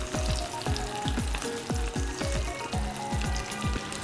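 Pressed boiled potatoes deep-frying in hot oil, the oil sizzling steadily as a spatula moves them about in the pan. Background music with a low, regular beat runs underneath.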